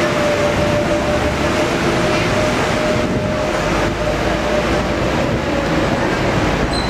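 Open-top tour bus driving through city traffic: steady engine and road noise heard from the open upper deck, with a thin steady whine that fades out about two thirds of the way through.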